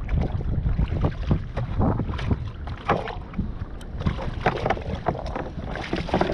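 Choppy sea water slapping and sloshing against a kayak's hull in irregular splashes and knocks, over the steady rumble of wind on the microphone.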